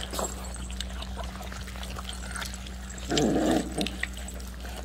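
Six-week-old Rottweiler puppies eating wet food from a shared pan, smacking and chewing with many small wet clicks. About three seconds in, one puppy gives a short vocal sound.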